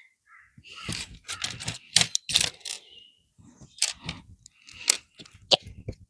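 Plastic LEGO bricks clicking and rattling as pieces are handled and pressed together, an irregular run of sharp clicks.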